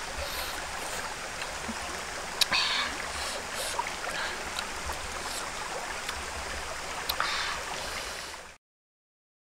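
A stream running steadily, with a couple of short clicks about two and a half and seven seconds in; the sound cuts off abruptly near the end.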